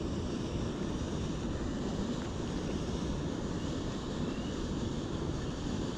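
Wind buffeting the microphone: a steady, low rumbling noise that flutters unevenly.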